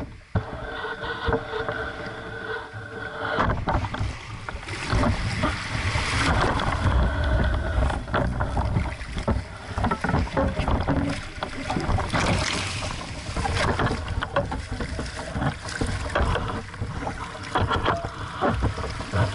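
Water sloshing and splashing around a small sailing dinghy's hull in shallow surf, with wind on the microphone and irregular knocks and splashes as the sailor climbs out and wades the boat in.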